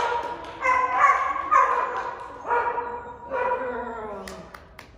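Small dog barking repeatedly in high-pitched, drawn-out yaps, about one a second, as it runs an agility course with its handler.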